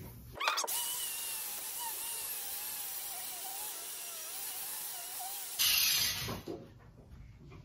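Handheld power grinder stripping rust from a steel axe head: it starts about half a second in, runs with a high whine that wavers as it bites into the metal, and cuts off after about five seconds.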